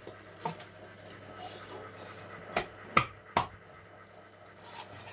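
Large knife chopping through carp on a cutting board, cutting the fish in two: a few sharp knocks, the loudest three coming close together about two and a half to three and a half seconds in.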